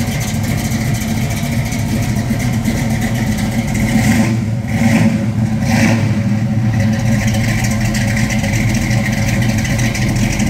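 A 1969 Chevrolet Camaro SS's V8 engine idling steadily through the exhaust, with a couple of brief revs near the middle.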